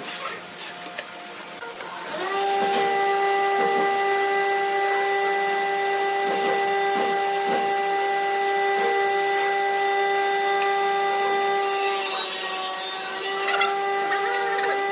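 A few clicks, then a wood lathe starts about two seconds in and runs with a steady whine that dips briefly in pitch near the end. A turning tool scrapes against the spinning blank of bamboo chopsticks set in epoxy resin.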